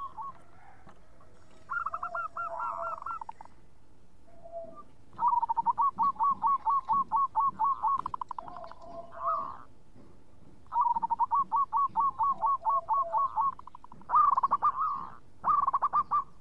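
Zebra dove (perkutut) singing: phrases of rapid, evenly spaced coos, about five a second, repeated several times with short pauses between.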